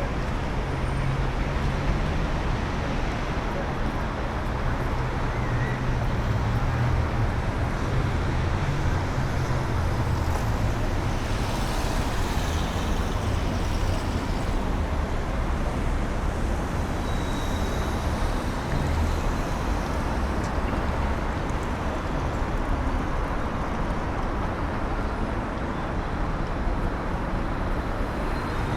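Busy city street traffic: a steady wash of road noise with the low rumble of vehicle engines.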